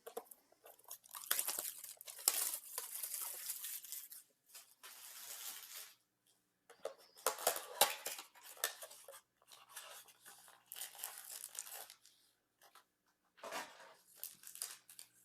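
A trading-card blaster box being torn open by hand: repeated bursts of tearing, crinkling and rustling packaging, with short pauses between.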